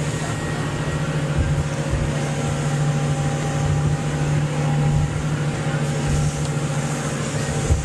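A motorboat's engine running steadily, a low even drone, with a brief dull thump near the end.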